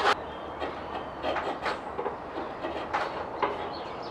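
Wood chisel paring a small piece of hardwood by hand: short scraping cuts at irregular intervals over a faint hiss.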